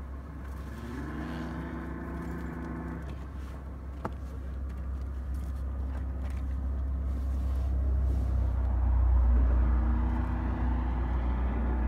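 A motorboat engine running with a low steady rumble, a humming tone that rises and holds twice, growing louder in the second half.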